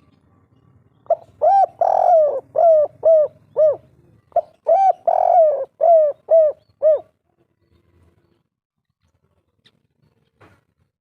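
Spotted dove (tekukur) cooing its 'kuk 3' song twice: each phrase opens with short coos and one longer coo, then ends in three short arched 'kuk' notes. The bird falls silent for the last few seconds, apart from a couple of faint clicks.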